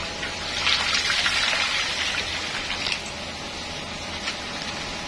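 Thick coconut milk gushing out of a plastic bag into a large wok of gulai spice paste, splashing for about three seconds before the pour tails off.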